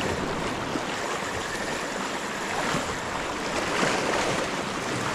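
Sea water washing and foaming over the rocks at the foot of a shore ledge, a steady rushing wash.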